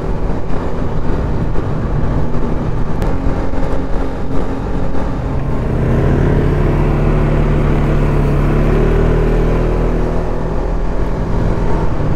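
ATV engine running as the quad rides along a trail. Its note is uneven through the first half, then holds steady for several seconds near the end.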